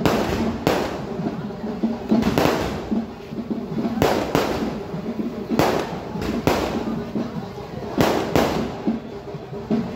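Aerial firework shells bursting overhead: about a dozen sharp bangs at irregular intervals, some in quick pairs.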